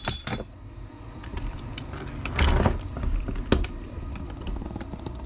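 A chrome shower-drain socket and its steel bar clink with a short metallic ring on the differential case. Then come handling scuffs, a bump and small knocks as the bar is wrenched on, and the tightly seated part does not break free.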